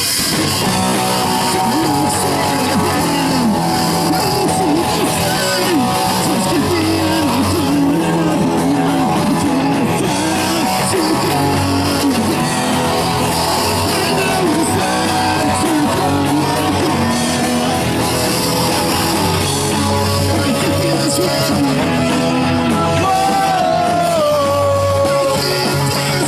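A hardcore punk band playing live and loud: distorted electric guitars, bass and drums, with singing at times. A falling pitch glide is heard near the end.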